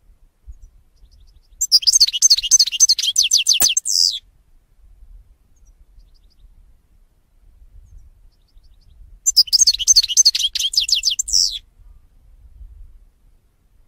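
European goldfinch singing: two bursts of rapid, high twittering notes, each about two and a half seconds long and ending in a longer drawn-out note, with about five seconds of quiet between them.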